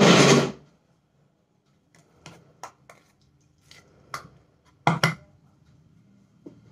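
A loud rustling burst at the start, then scattered clinks and knocks from a stainless steel bowl of semolina batter being handled and stirred, the loudest a quick double knock about five seconds in.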